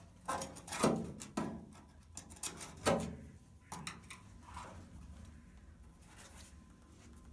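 A thin steel pick scratching and scraping over a rusty sheet-steel chassis plate in a series of short sharp strokes, then lighter rubbing. The strokes mark where the hidden spot welds lie, ready for drilling out.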